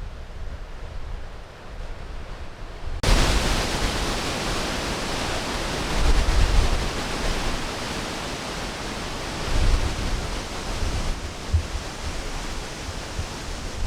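Strong wind blowing against the microphone, a steady rush with low buffeting gusts. The rush jumps suddenly much louder about three seconds in.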